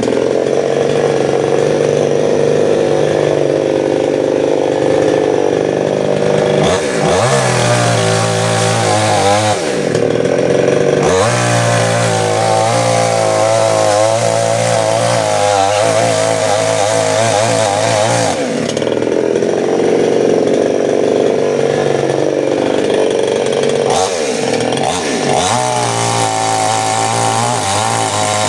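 Large two-stroke chainsaw, a 'New 799 Stihl', running hard on a power test, its engine pitch dropping and climbing back several times as the revs fall and rise.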